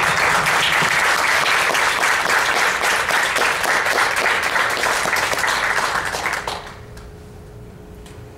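Audience applauding at the end of a lecture, the clapping dying away about six and a half seconds in, leaving a quiet room with a faint steady hum.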